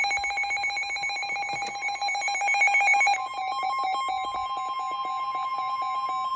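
Emergency alert tones for a severe thunderstorm warning: a rapidly pulsing electronic alarm tone with a ringing quality. About three seconds in, a steady single-pitch alert tone joins it.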